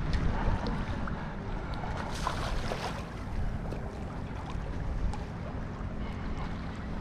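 Wind rumbling on the microphone over open water, a steady low buffeting with a few faint ticks.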